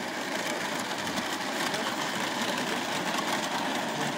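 Model freight train of tank wagons running along the layout's track, a steady mechanical rattle and hum of wheels and motor with light clicks over it.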